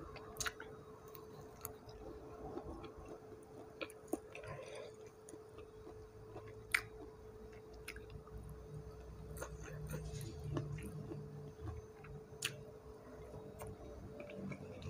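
Close-up eating sounds: soft chewing with scattered short mouth clicks and smacks, over a faint steady hum. A low rumble builds in the second half.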